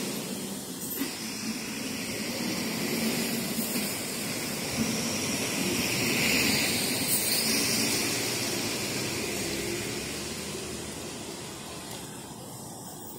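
A motor vehicle driving past in street traffic: a steady engine and tyre noise that swells to its loudest about six seconds in, then slowly fades away.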